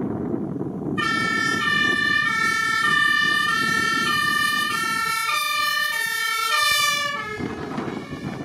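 Mercedes-Benz Unimog U5023 fire tanker driving past with its compressed-air two-tone Martinshorn sounding, high and low notes alternating about every half-second to second. The horn starts about a second in and cuts off with a short downward slide about seven seconds in, leaving the diesel engine and tyre noise of the truck going by.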